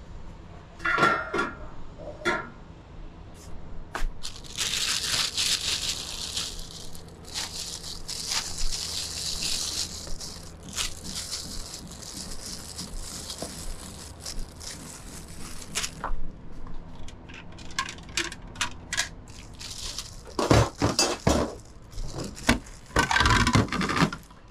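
Clattering of dishes and utensils in a small noodle-stall kitchen, with many sharp knocks. A loud hiss starts about four seconds in and lasts around ten seconds.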